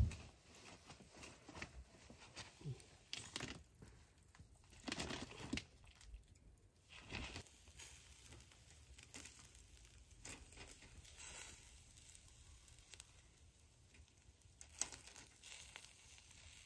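Beef grilling on a wire mesh over hot charcoal: faint, irregular crackling and ticking, with a sharp click right at the start.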